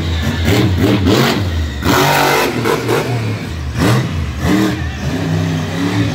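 Monster truck engine revving hard in repeated surges, its pitch rising and falling as the truck drives and jumps on the dirt.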